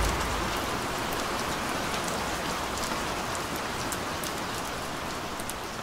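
Steady rainfall hiss with scattered sharp drop ticks, slowly getting quieter.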